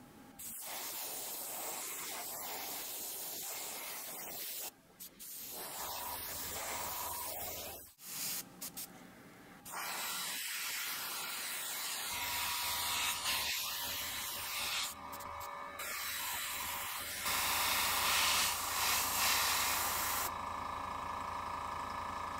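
Gravity-feed airbrush spraying paint: a steady hiss of compressed air from the nozzle in long bursts, cutting out briefly a few times as the trigger is let off. A low hum runs underneath for much of the second half.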